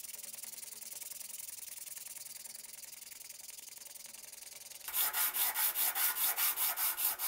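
Hand sanding on the steel head of a butcher's hatchet: sandpaper on a block rubbed fast back and forth, a steady hiss. About five seconds in, this gives way to louder, slower strokes, about four a second, of a part being rubbed over a flat sheet of sandpaper.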